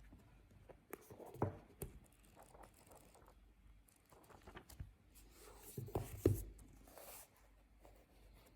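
Small handling sounds: a few light knocks and taps with soft rustling and scraping between them, the sharpest knocks about one and a half seconds and six seconds in.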